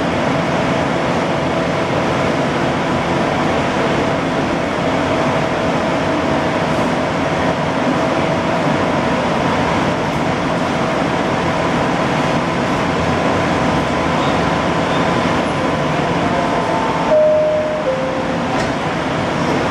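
Steady air-conditioning and equipment hum inside a Bombardier Innovia APM 100 light-rail car standing at a station with its doors open. Near the end a short two-note falling chime sounds, the warning that the doors are about to close.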